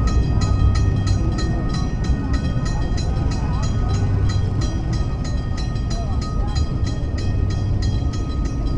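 Railroad crossing-signal bell ringing steadily, about three strikes a second, each strike ringing on at the same pitch, while the crossing is active and the gate arms rise.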